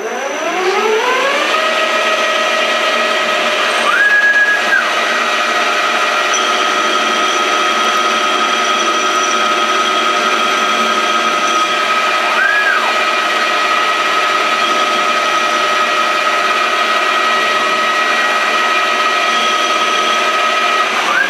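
Converted CNC bench lathe running a turning program. Its three-phase spindle motor on an inverter whines up to speed in the first second or so, then runs with a steady whine. Three brief rising-and-falling whines, about 4 s in, about 12 s in and at the end, fit the stepper-driven axes making rapid moves.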